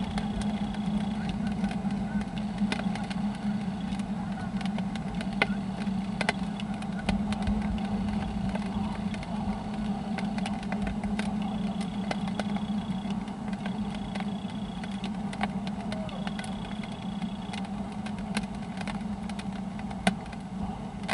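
Steady low mechanical hum, engine-like, with scattered faint clicks and a thin high tone held for a second or so several times.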